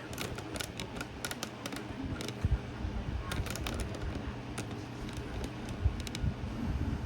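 Small 10-inch box fan running at full speed, a steady hum with a low rumble of moving air, overlaid by irregular light clicks.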